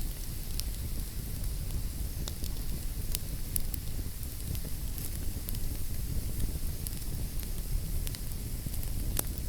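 Wood fire burning in a fireplace: a steady low rumble and hiss with scattered sharp crackles and pops, a few each second.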